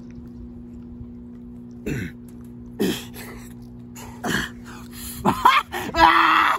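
Effortful grunts and strained exhalations from men locked in an arm-wrestling bout: a few short grunts spaced out, then louder, longer strained groans building near the end.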